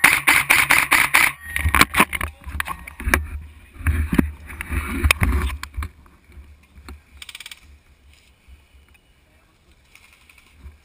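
Airsoft guns firing. Rapid, irregular loud clicks and pops fill the first few seconds, then it goes quieter, with one short burst of fast, even clicks of automatic fire about seven seconds in.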